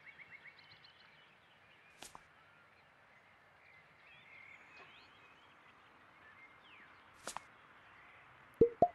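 A train's rhythmic clatter fading out, then quiet outdoor ambience with faint birdsong and a couple of soft clicks. Near the end come short cartoon pop effects, each higher in pitch than the last.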